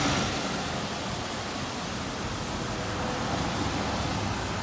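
Roundabout fountain's water jets splashing and falling into the basin, a steady rushing hiss.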